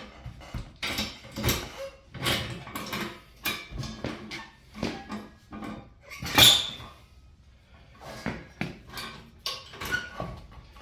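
Tire bead being worked loose from a UTV beadlock wheel: a run of irregular knocks, the loudest about six and a half seconds in.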